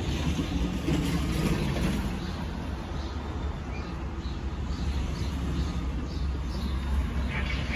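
Jet airliner passing overhead at a distance, a steady low rumble, with small birds chirping faintly.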